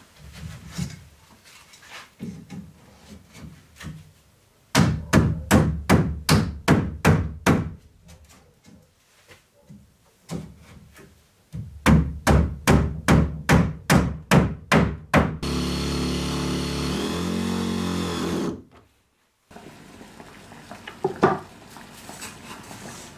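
Hammer driving nails into wooden paneling: two runs of quick blows, about four a second. Then a power tool runs steadily for about three seconds, its pitch dropping near the end before it cuts off.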